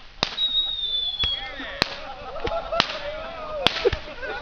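Fireworks going off in a bonfire: sharp bangs and cracks about once a second, with a long, slightly falling whistle starting about half a second in.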